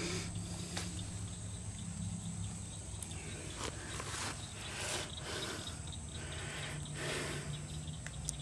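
Steady high-pitched insect buzz, like crickets, with a low steady hum underneath and soft irregular rustles every second or so.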